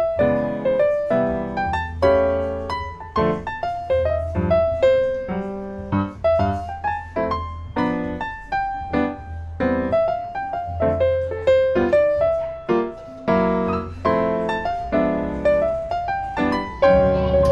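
Background piano music: a gentle melody of quickly fading notes over a steady bass line.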